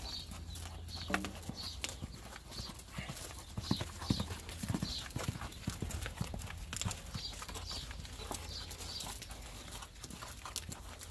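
Horses walking on sand arena footing, their hooves making an uneven clip-clop of soft steps.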